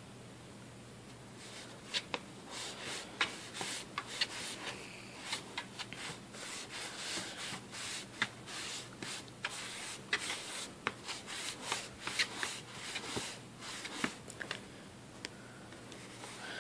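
A cat scratching at a cardboard box with its claws: an irregular run of rasping scratches that starts about a second and a half in and stops near the end.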